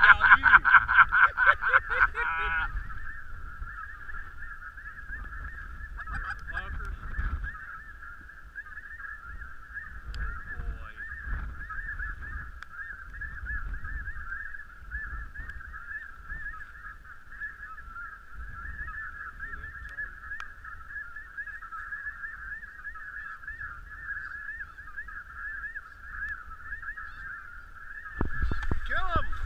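Dense, continuous chorus of snow goose calls, steady throughout. It opens with a couple of seconds of louder, rapid rhythmic honking.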